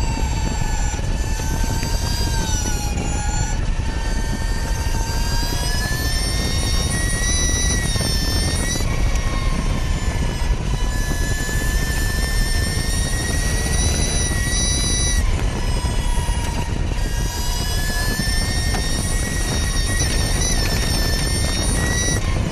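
Onboard sound of a Ducati V21L MotoE electric race bike at speed: a high electric-motor and drivetrain whine over heavy wind rush. The whine's pitch dips twice and climbs back up as the bike slows for corners and accelerates out.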